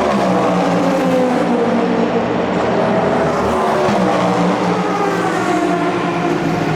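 Endurance race car engines running at high revs, their pitch falling over the first couple of seconds and shifting again later.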